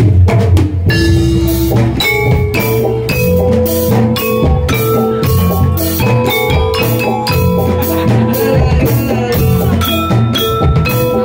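Javanese gamelan music for a jathilan trance dance: hand drums beating a fast, steady rhythm under ringing, mallet-struck metal keys and gongs.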